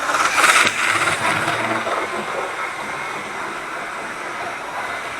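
OO gauge model train running on the layout: its small electric motor whirring and wheels rattling over the track, a little louder about half a second in.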